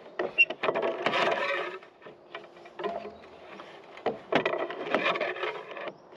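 Steel reinforcing bars clinking and scraping as they are bent into stirrups on a manual stirrup-bending tool: sharp metallic clicks and knocks, with two longer grating scrapes about a second in and again at about four seconds.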